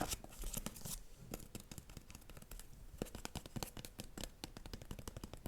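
Close-miked ASMR tapping: quick, irregular light clicks and small scratches, several a second.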